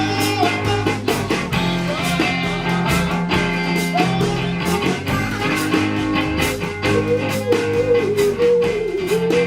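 Band playing a song at rehearsal, with regular drum and cymbal hits over held bass notes and a wandering lead melody.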